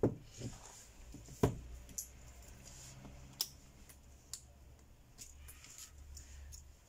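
A few scattered light clicks and taps, the sharpest about a second and a half in, as a smartphone and its loose replacement LCD screen are handled, unplugged and lifted apart on the bench.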